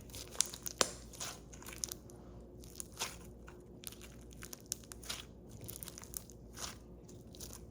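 Slime being squeezed and worked by hand, giving off irregular small crackling pops and clicks.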